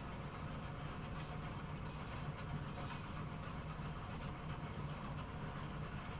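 Bowling alley ambience: a steady low machine hum with a few faint, distant clicks and clatters, and no loud pin strike.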